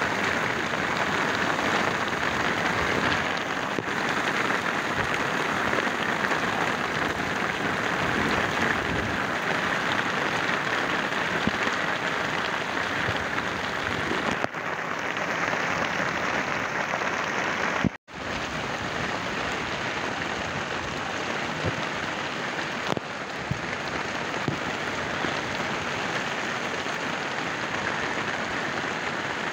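Heavy, steady rain pouring down, with a momentary break about two-thirds of the way through where the sound cuts out for an instant.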